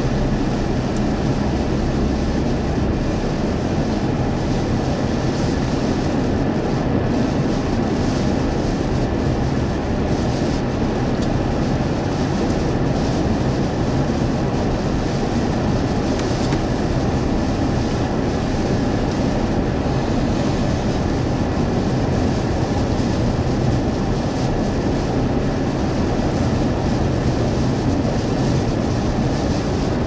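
Steady drone of a car driving on a wet highway, heard inside the cabin: tyres on wet pavement and engine hum, with rain and wind against the car.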